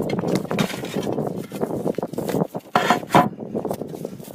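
Flat roof tiles being pried up with crowbars and lifted off: irregular clinking, scraping and knocking of tile against tile and metal bar, with a few sharper clacks about three seconds in.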